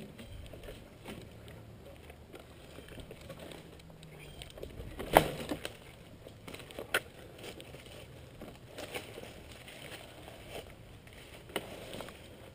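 Scattered rustles and knocks as the rider handles a fallen dirt bike in dry brush, with one sharp knock about five seconds in.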